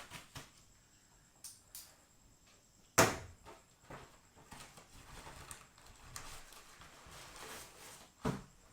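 A mailed parcel being handled and unpacked: a few light clicks, a sharp knock about three seconds in, then soft rustling of packaging, and another knock near the end.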